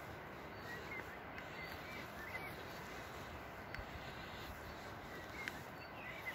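A steady hiss, with faint short bird chirps every second or two and a few light clicks.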